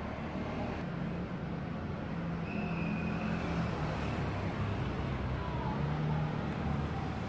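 Street traffic noise: the engines of passing vehicles hum over a steady rumble of road noise, with a brief high tone about two and a half seconds in.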